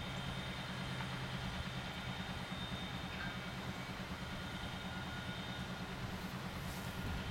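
Cook oil-well pumpjack running: a steady low drone with a fast, even throb, and faint steady high tones above it.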